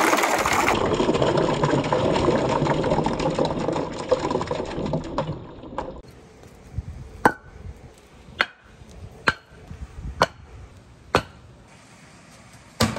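A crateful of small colourful balls poured from a plastic crate into a tub of water, clattering and splashing densely for about five seconds. After that come separate sharp knocks, about one a second.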